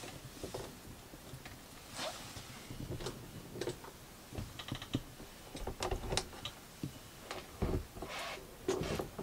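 Touring caravan's hinged acrylic window being pulled shut and its lever catches turned to lock: an irregular run of light clicks and knocks with a few short scraping rustles.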